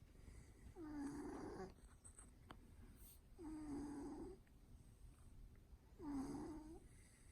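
A cat snoring: three slow, evenly spaced snores about two and a half seconds apart, each under a second long, with a low tone that dips and comes back up.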